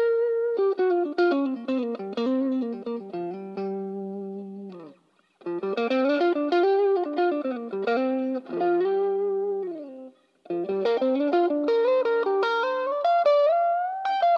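Tokai Super Edition SD-65s electric guitar playing single-note melodic phrases, with notes that slide and glide in pitch and falling runs that ring out. The playing stops twice for a moment, about five and ten seconds in.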